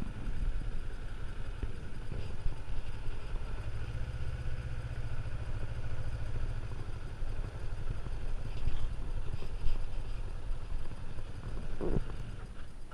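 Kawasaki Ninja 500R's parallel-twin engine idling steadily, then picking up briefly near the end as the bike pulls away.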